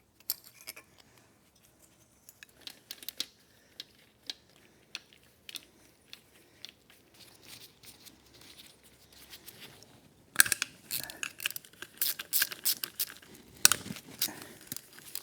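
Metal tools and engine parts being handled on a workbench: scattered light clicks and knocks, turning into a busy run of clicks and rattles about ten seconds in.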